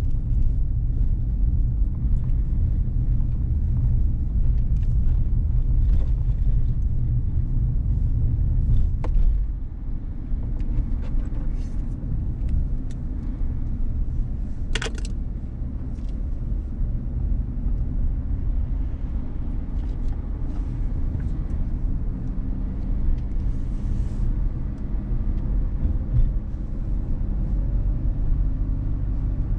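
A car driving along, with a steady low rumble of engine and road noise. A brief high chirp comes about halfway through.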